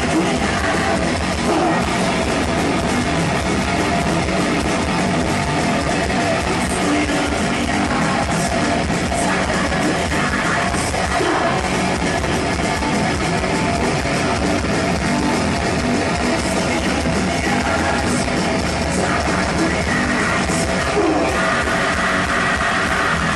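Heavy metal band playing live at full volume: distorted electric guitar and drum kit, with singing and yelled vocals, heard from within the crowd.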